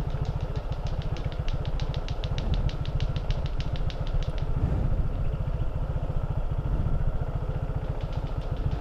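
Motorcycle engine idling steadily at a standstill, a fast even low pulsing. A fast high ticking, about six a second, runs alongside it and stops about halfway through.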